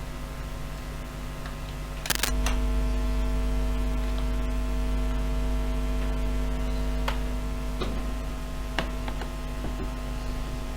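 A Compaq Presario CQ35 laptop being switched on: a click about two seconds in, then a steady electrical hum with several tones as it runs, and a few light clicks later.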